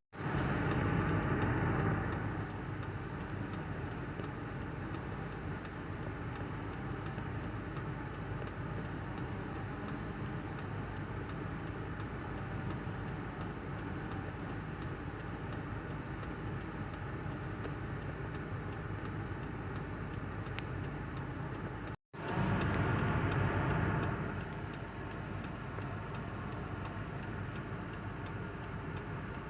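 Small engine running steadily with a fast ticking beat, louder for about two seconds at the start. It cuts out briefly about 22 seconds in, comes back loud for two seconds, then settles.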